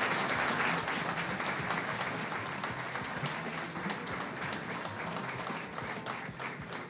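Audience applauding, with dense clapping that slowly fades.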